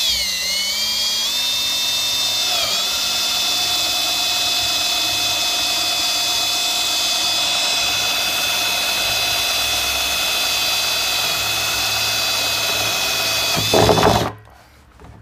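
Cordless drill running steadily with a whine as an auger bit bores through the wall of a plastic barrel; the pitch dips briefly about three seconds in. Near the end there is a short louder burst, and then the drill stops.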